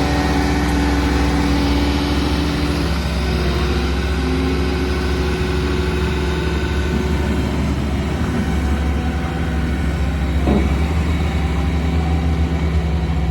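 Skid steer loader engine running steadily, with a low, even hum and some higher tones that shift in pitch as it works.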